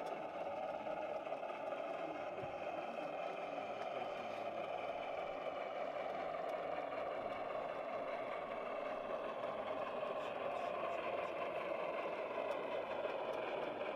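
F-scale model steam locomotive running slowly on its track with a train of log cars: a steady rolling rumble and whir of wheels and drive mechanism.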